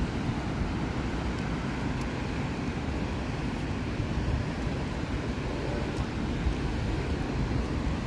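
Wind rumbling unevenly on the microphone over a steady wash of distant surf.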